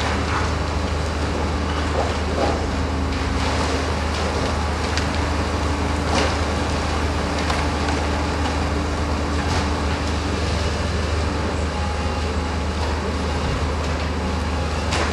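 Tracked demolition excavator's diesel engine running steadily under load, with a few sharp cracks and crashes as its arm pulls at the building's roof timbers and stonework.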